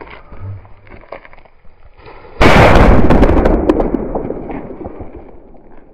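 Firecracker fuse burning faintly, then about two and a half seconds in the cracker goes off with a sudden, very loud bang that crackles and fades away over about three seconds. The cracker is two Diwali firecrackers taped together.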